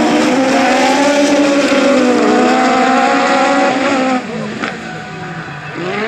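Several lowered VW Beetle autocross cars racing on dirt, their engines running loud and close together. About four seconds in the sound drops suddenly and the engines are heard further off, with a short rise in revs near the end.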